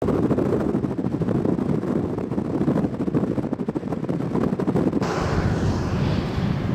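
Wind buffeting the microphone: a rough, low rumbling noise. About five seconds in it changes abruptly, and a higher rushing hiss joins the rumble.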